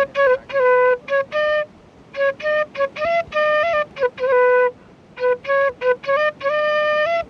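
Music: a single instrument playing a melody in short phrases separated by brief pauses.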